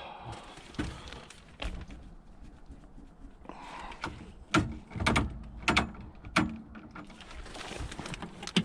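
A string of sharp knocks and clunks, about seven in all, most of them bunched together around the middle, like hard parts or a door being handled on the backhoe.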